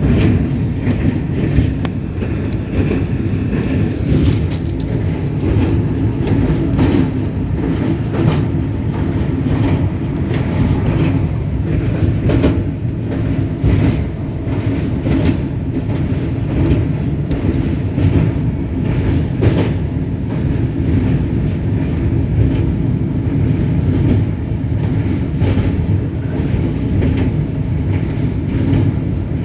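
Train running on the rails: a steady low rumble with repeated clacks from the wheels over the rail joints.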